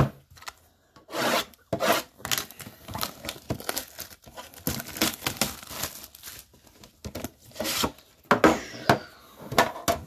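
Cardboard card boxes and their packaging being handled: a run of irregular rubbing and scraping strokes as boxes are slid across each other and a sealed box is worked open.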